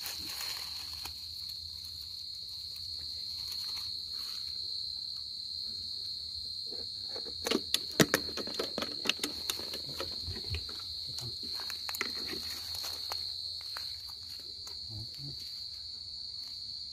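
Field crickets (dế mèn) singing: a steady, high-pitched song that goes on unbroken. About halfway through come a few sharp clicks and rustles.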